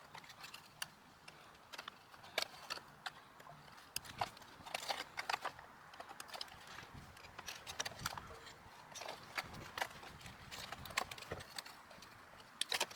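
Faint, irregular small clicks and taps of plastic wire connectors being pulled off and pushed onto a mobility scooter's controller circuit board.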